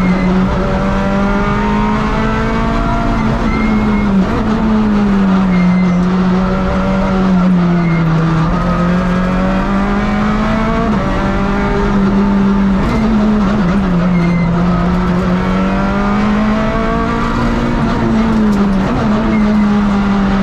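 Rally car engine heard from inside the cockpit, revving up and down as the car is driven hard along a winding road, its pitch jumping at each of several gear changes.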